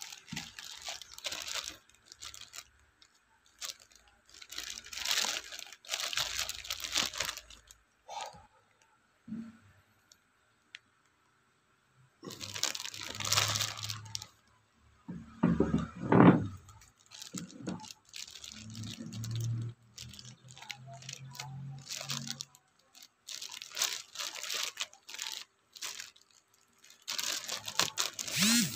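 Clear plastic bag crinkling in bursts as a boxed spray gun is handled and unwrapped, with a few knocks from the gun being moved, the loudest about halfway through.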